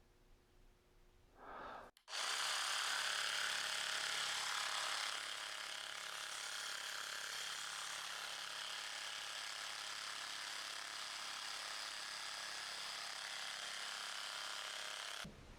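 Handheld electric percussion massager running steadily against the muscles of the upper back, working on trigger points. It switches on about two seconds in with a steady motor buzz, a little louder for the first few seconds, and cuts off suddenly just before the end.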